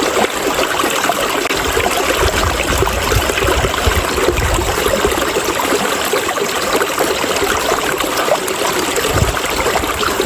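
River water rushing steadily over rocks, an even hiss of flowing current.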